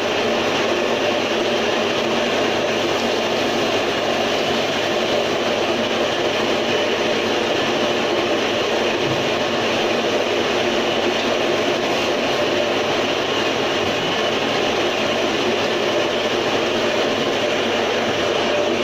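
Homemade motor-driven swinging tofu strainer running steadily, a loud continuous machine noise with a low hum and no breaks.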